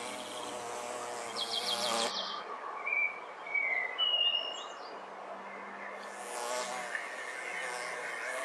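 Several birds calling and singing: a quick high trill about a second and a half in, then short whistled notes, with lower wavering calls near the start and again about six seconds in.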